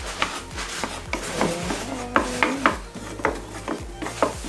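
Wooden spatula scraping and knocking against a frying pan in repeated strokes, stirring flour into bubbling melted butter to dissolve it without lumps.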